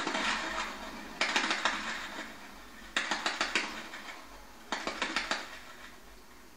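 Vehicle-mounted machine gun on a Toyota FQ15 jeep firing short bursts of rapid shots, four bursts about every two seconds with the first already under way at the start. It sounds thin, played back through a television speaker.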